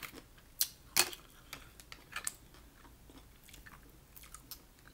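Close-up eating sounds while shelling steamed mussels: soft chewing with scattered sharp clicks of mouth and shell, strongest in the first couple of seconds.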